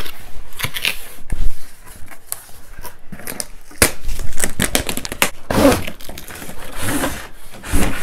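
Cardboard box being opened and handled: flaps pulled open and the box scraped, rustled and knocked about, with several dull thumps as the toy vacuum is slid out.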